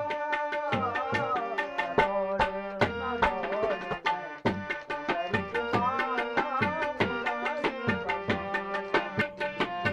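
Tabla played in a quick, steady rhythm under a man singing a Garhwali folk song, his voice rising and falling in stretches over the drumming.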